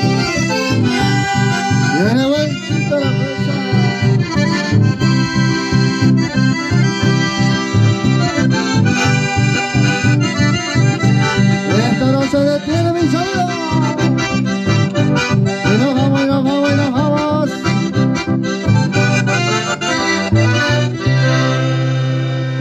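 Button accordion and acoustic guitar playing live folk music with a steady pulsing beat. Near the end the rhythm stops and a long chord is held.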